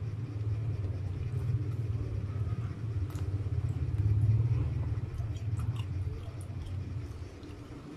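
Close-miked chewing of a mouthful of sweet-and-sour fried meat, over a steady low rumble, with a few light clicks of plastic spoon and fork against the paper takeout box.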